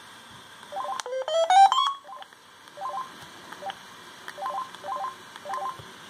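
Mitsubishi M342i mobile phone's electronic key beeps as its menus are stepped through: a quick rising run of tones about a second in, the loudest part, then short single beeps every half second or so.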